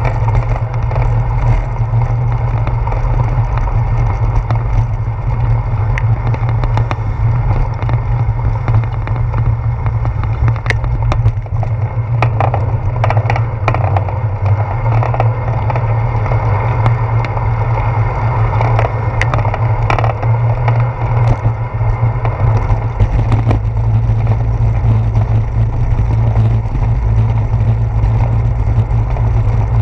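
Steady wind rumble and rolling road noise from a handlebar-mounted action camera on a bicycle riding over wet pavement, with scattered short clicks and rattles through the middle stretch.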